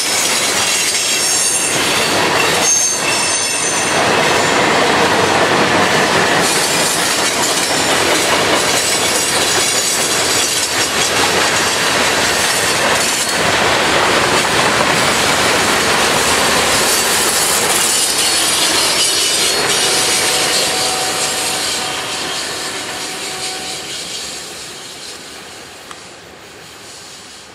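Freight train cars (hoppers, tank cars and boxcars) rolling past on steel wheels, a steady loud rail noise with some high wheel squeal a few seconds in. The sound fades away over the last several seconds as the train moves off.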